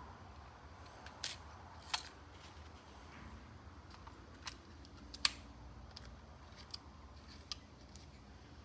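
Scattered small sharp clicks and taps of metal pen-kit parts being handled and fitted together while a turned resin pen is assembled, the sharpest click about five seconds in.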